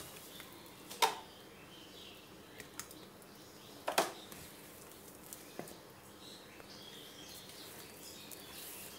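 Spatula folding thick cake batter in a mixing bowl: quiet stirring with two sharp knocks of the spatula against the bowl, about a second in and about four seconds in, and a lighter tap a little later.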